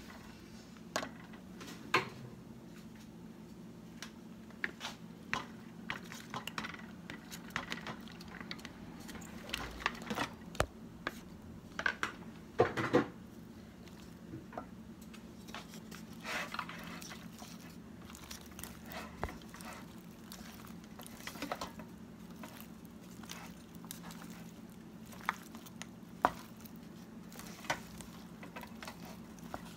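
Wire whisk clinking and scraping against a stainless steel pan as a thick cheese sauce, and then boiled penne, is stirred, in irregular metallic clicks. A steady low hum runs underneath.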